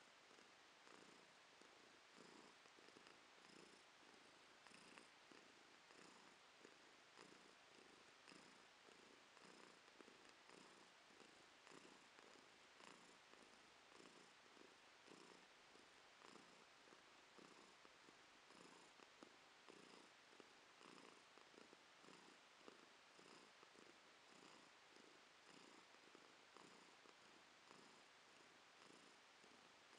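Domestic cat purring softly and steadily while being stroked, the purr pulsing in an even rhythm with its breathing.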